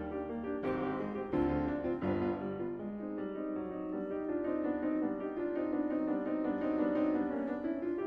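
Background piano music: separate notes struck in the first few seconds, then softer held notes.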